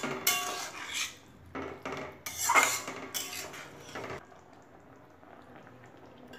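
Spatula stirring and scraping a wet, saucy curry around a kadai, in about six strokes. The stirring stops a little after four seconds in.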